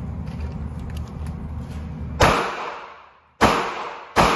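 A low steady rumble, then, about halfway through, three gunshots at a shooting range, roughly a second apart, each a sharp crack with an echo that fades away.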